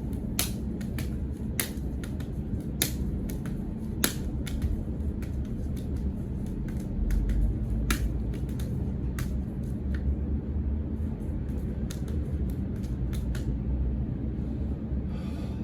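Irregular sharp slaps and taps of hands meeting and blocking in partner martial-arts hand drills, over a steady low rumble.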